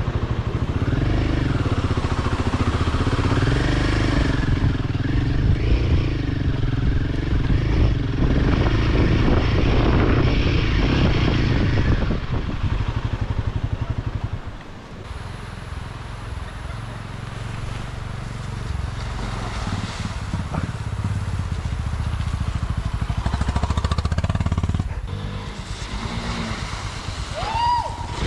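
Royal Enfield Himalayan 450's single-cylinder engine running off-road, its pitch rising and falling with the throttle for about the first twelve seconds, then settling to lower, quieter revs for the rest.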